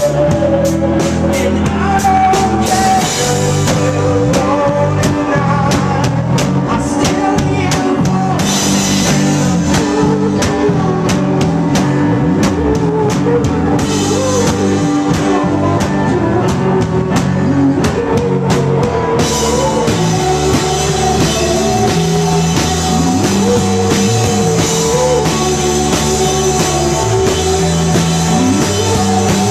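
Live rock band playing: drum kit with regular cymbal strokes under guitars and bass.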